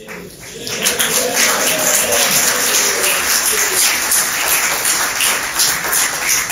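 Audience applauding, rising just after the start and holding steady as a dense patter of many hands clapping.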